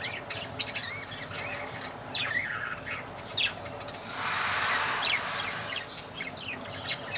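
Pet budgerigars chirping, many short quick chirps gliding up and down in pitch. About four seconds in, a steady hiss-like rush joins the chirping.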